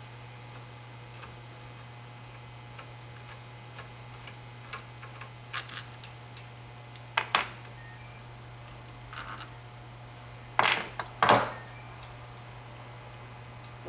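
Metal pump parts clinking and clicking as they are handled and set down. A few light clicks are followed by two louder clinks a third of the way in, then the two loudest, ringing clinks near the end.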